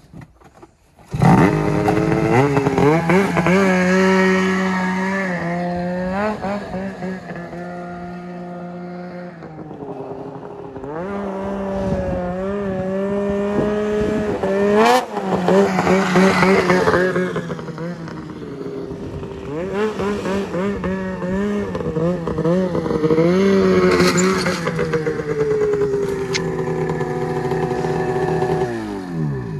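Race snowmobile's two-stroke engine revving hard in repeated bursts, its pitch rising and falling as the sled is driven up a ramp onto a pickup's tailgate. It starts about a second in, eases off for a couple of seconds around the middle, and cuts off just before the end.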